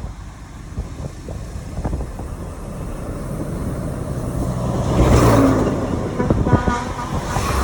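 Road traffic: motor vehicles running with a steady low rumble, swelling to a louder pass about five seconds in.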